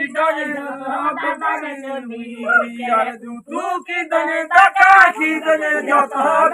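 A voice singing, holding long notes at a fairly steady pitch and broken into short phrases.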